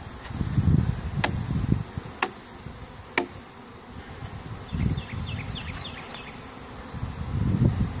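Honey bee swarm buzzing as the cluster is shaken off a log into a hive box, with a few low thumps and three sharp clicks in the first half.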